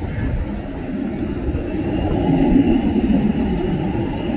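Boeing 747 freighter's four jet engines running as the aircraft rolls down the runway: a steady low rumble that swells a little midway, with a faint high whine above it.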